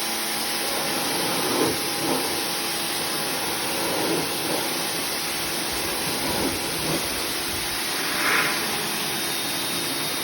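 Pressure washer running, its spray a steady hiss over a faint motor hum, with a few brief louder swells.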